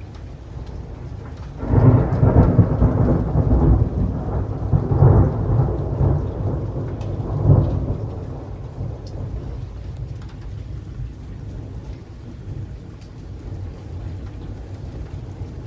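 Thunder rumbling from a nearby lightning strike. It breaks in suddenly about two seconds in, swells in several loud peaks over the next six seconds, then dies away, over a steady hiss of rain.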